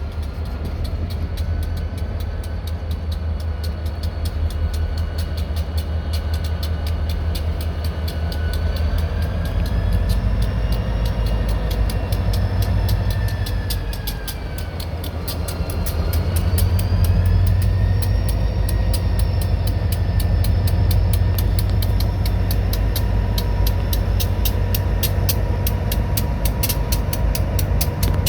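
Turbocharged high-hood EMD Geep diesel locomotives working under load while switching cars: a deep engine rumble under a high turbo whine that rises and falls in pitch, easing off about halfway through and then spooling back up.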